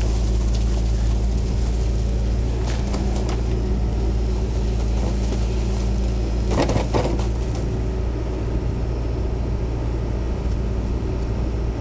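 John Deere backhoe loader's diesel engine running steadily, with a few knocks and clanks about three seconds in and again near seven seconds.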